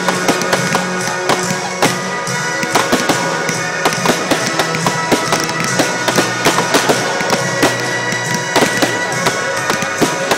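Fireworks going off in quick succession: many sharp bangs and crackles from rockets and bursting aerial shells, several a second, over music with long held tones.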